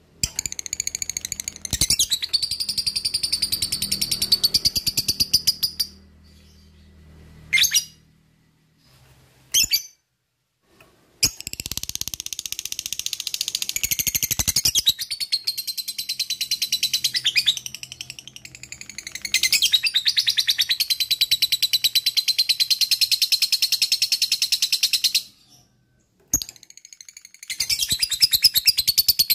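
Lovebird 'ngekek': long bouts of a rapid, high chattering trill, with a few short single calls in a pause between the first and second bout.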